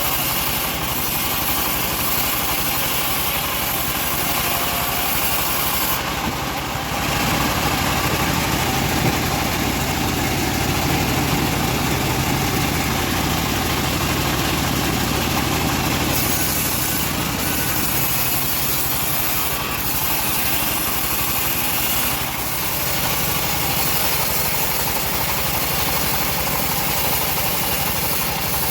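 Engine-driven bandsaw mill running steadily. Its sound grows fuller and slightly louder from about a quarter of the way in until just past halfway, then settles back.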